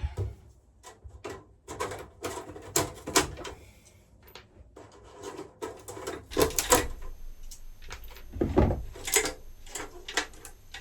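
Irregular clicks, taps and clunks of an electric melting furnace's metal cover, screws and small parts being handled as the furnace is taken apart, with a few heavier knocks in the second half.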